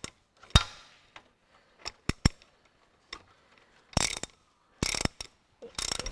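Socket ratchet clicking in short bursts of strokes, about once a second in the second half, snugging up the main bearing cap bolts on a Ferguson TEA20 engine. There is a sharp metal knock with a brief ring about half a second in.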